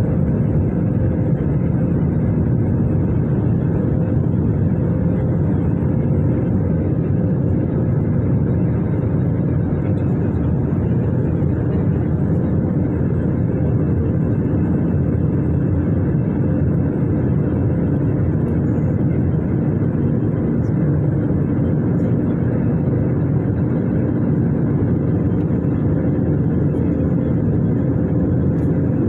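Steady cabin noise inside an Airbus A320 airliner in flight: a low, even rush from the engines and airflow, with a faint steady hum.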